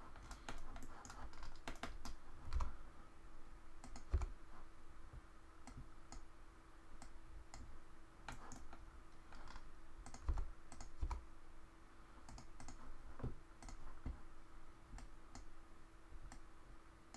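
Irregular clicks and taps of a computer keyboard and mouse, scattered throughout with a few heavier knocks, over a faint steady hum.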